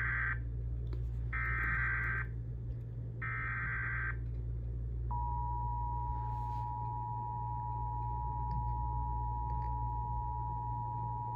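Emergency Alert System header: three roughly one-second bursts of screeching digital data tones, then, about five seconds in, the steady two-tone EAS attention signal, which holds to the end. A steady low hum runs underneath.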